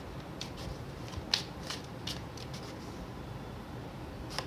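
A deck of tarot cards being shuffled and handled by hand: a run of short, light card snaps and flicks. They come most often in the first couple of seconds, thin out, and end with a louder snap.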